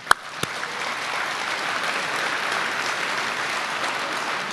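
Audience applauding: a few separate claps at first, quickly filling into steady applause.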